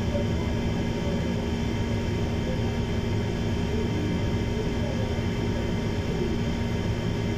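Steady mechanical hum and hiss from a running machine, holding an even drone with a few faint steady tones.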